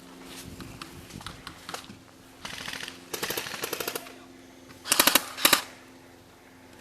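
Airsoft guns firing fully automatic. A few scattered shots come first, then a fast run of shots about three seconds in, and two short, louder bursts about five seconds in.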